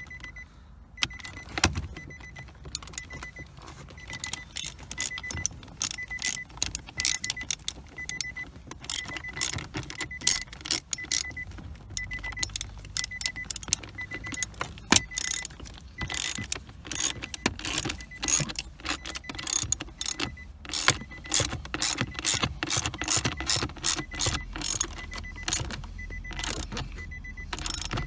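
Socket ratchet clicking in quick runs, stroke after stroke, as 10 mm bolts holding an automatic shifter assembly are run down. A faint high beep repeats steadily behind it.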